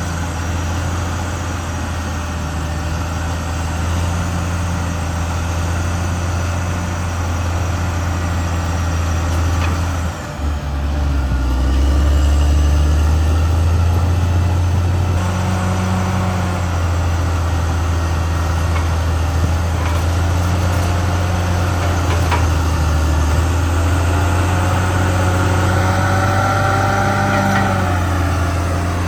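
Caterpillar D6R XL bulldozer's diesel engine running steadily. It dips briefly about ten seconds in, then comes back louder. Near the end, squealing tones rise and fall over the engine.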